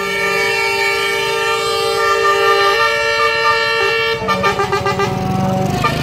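Multi-tone 'telolet' air horns on a convoy of Scania trucks, sounding a loud held chord of several notes that shift pitch. About four seconds in, the sound changes to quick repeated pulses over a low drone.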